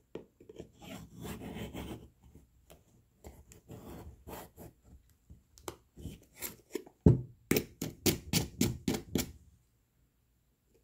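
Kitchen knife blade scraping and clicking against the edge of a river clam shell as it is worked between the valves to pry the shell open. Irregular rough scraping at first, then a run of about ten sharp scraping strokes from about seven to nine seconds in, the loudest near seven seconds, after which it stops.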